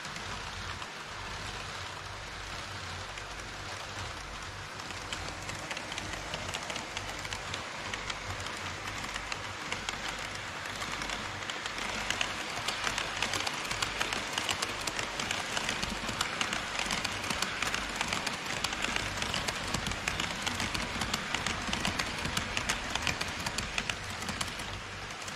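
HO-scale model trains rolling on track: a steady rattle of wheels with a rapid patter of fine clicks over the rail joints. It grows louder about halfway in as an E5 Shinkansen model passes close on the near track, and drops back near the end.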